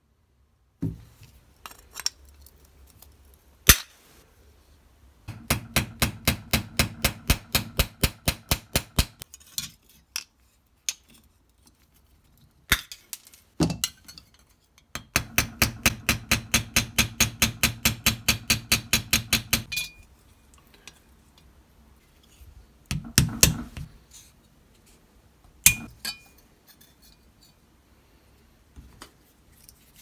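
Small hammer tapping the pivot end of a steel pocket knife on a small anvil, peening the pivot pin over. Two runs of quick, even taps, about six a second, each lasting four to five seconds, with single knocks in between.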